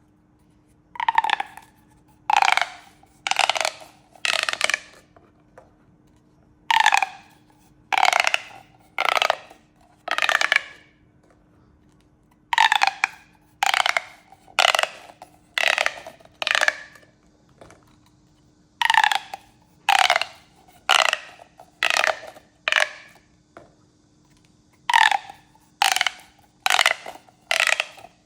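Plastic pop tubes being stretched and squashed, each pull giving a short pop with a brief ringing, slightly falling tone. The pops come about one a second in runs of four to six, with short pauses between runs, over a faint steady hum.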